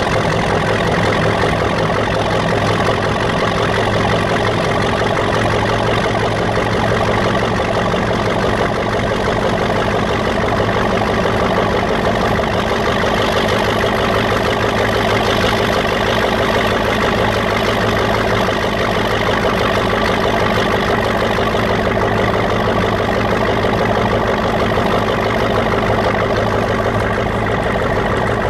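Krauss-Maffei ML 440 C diesel locomotive's slow-running (500–700 rpm) 440 hp turbocharged MAN engine burbling steadily under load on a 2.5% climb in second gear of its hydraulic transmission, heard on board. A faint high turbocharger whine rises slowly throughout.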